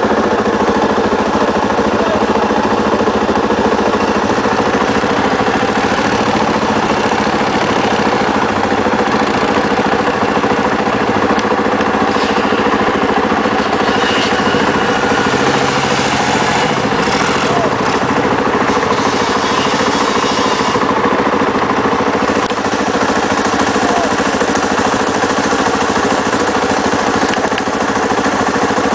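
ATV (quad bike) engines running at a steady speed, one of the quads stuck in deep mud with its wheels churning.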